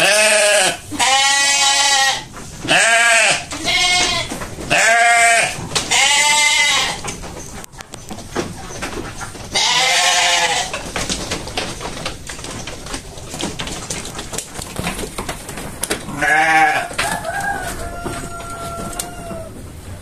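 Sheep bleating: about seven loud, quavering bleats in the first ten seconds and another a few seconds later. Near the end there is a fainter call held on a steady pitch.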